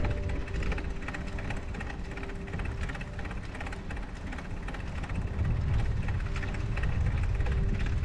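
Riding a bicycle through deep snow in a snowstorm: wind rumbles on the microphone over a dense, irregular rattling from the ride. The rumble grows louder a little past the middle.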